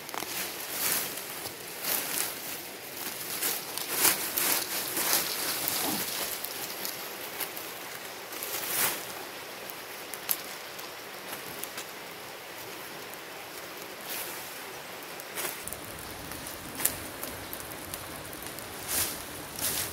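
Dry leaves and twigs rustling and snapping as weeds are pulled by hand, then a burning brush pile hissing with scattered crackles and pops.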